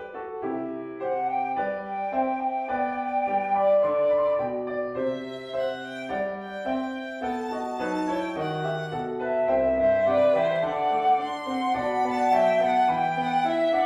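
Flute, violin and piano trio playing a melodic arrangement: held melody notes over piano chords and bass notes.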